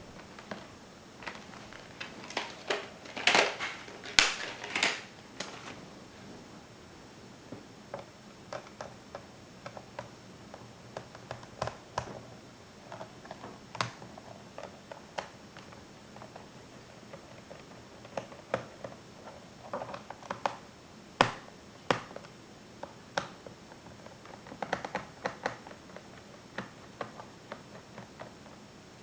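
Irregular small clicks and taps of hands and tools working on an IBM ThinkPad R50 laptop being disassembled, plastic and metal parts knocking. Louder clusters come about three to five seconds in and again around twenty-one seconds.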